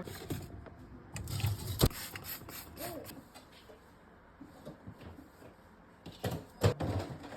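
Food containers and jars being taken out of a refrigerator and set down: scattered clatter and knocks, one sharp knock about two seconds in and a couple of louder knocks near the end.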